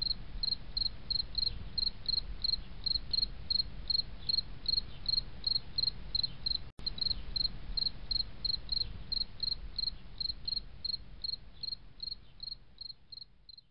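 Insect chirping: evenly spaced short, high chirps, about three a second, over a low hum. It breaks off for an instant about seven seconds in and fades near the end.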